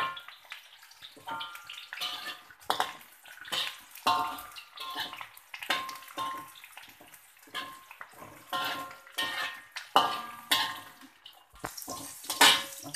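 Metal slotted spatula scraping and knocking against a metal wok while stir-frying sliced shallots, garlic and ginger in ghee. The strokes come irregularly, roughly one to two a second, each ringing the wok briefly with a metallic tone.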